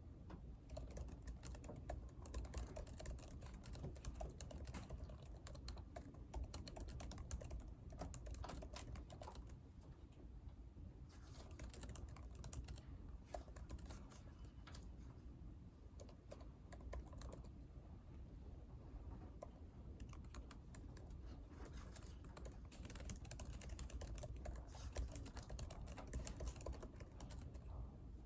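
Typing on a computer keyboard: irregular runs of quick key clicks with brief pauses, over a steady low room hum.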